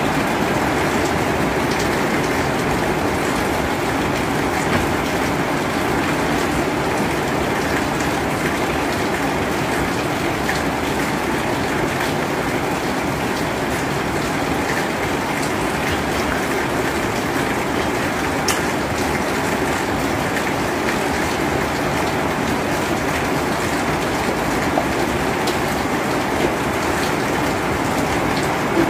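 Steady rain making a constant even hiss, with a few faint clicks on top.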